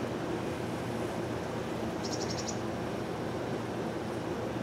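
Steady hum of a honeybee colony from an open top-bar hive, with a short high bird chirp about two seconds in.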